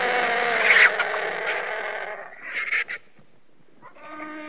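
Vulture calling: a loud, harsh, noisy call of about two seconds that fades out, then a short squawk. Near the end a second, more tuneful drawn-out call begins.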